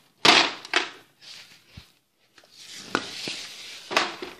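Rustling and rubbing handling noises in irregular bursts, with a few sharp knocks, as things are moved about and handled close to the phone.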